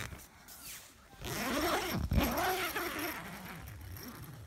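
A voice whose pitch rises and falls in several short arcs, over a rustling hiss; it starts about a second in and fades toward the end.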